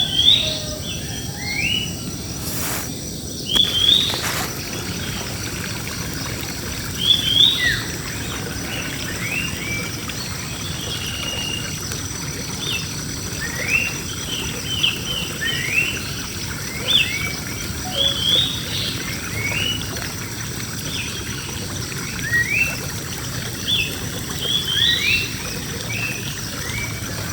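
Many small birds chirping in trees: short rising calls, several a second, over a steady background hum. Two sharp clicks sound about three and four seconds in.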